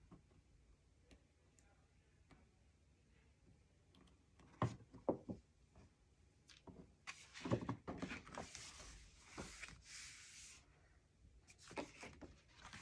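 Hands working with paper and small craft magnets: scattered light clicks, two sharper taps a little under five seconds in, then about three seconds of paper rustling and sliding.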